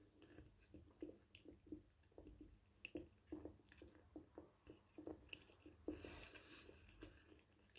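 Faint close-up chewing of toasted bread with poultry sausage slices, small wet clicks about three times a second.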